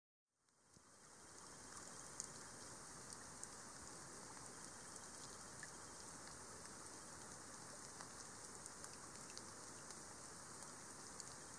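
Rain falling into a shallow puddle, a steady patter with single drop impacts standing out here and there. It fades in over the first second or two and then holds steady.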